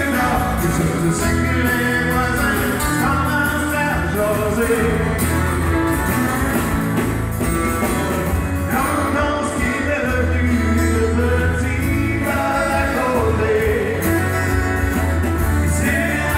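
Live country music: several acoustic guitars strummed together with a fiddle, and a man singing over them.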